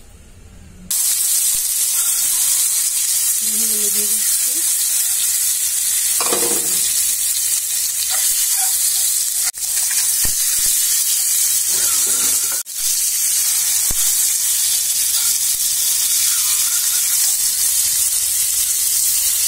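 Peeled hard-boiled eggs frying in hot oil in a non-stick pan, a steady loud sizzle starting about a second in and cutting out briefly twice, with a few light knocks as the eggs are turned.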